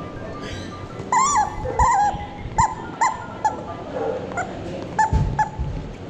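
Rubber screaming-chicken squeaky toy squawking in short, pitch-bending bursts, about ten times, as a dog chews and bites on it.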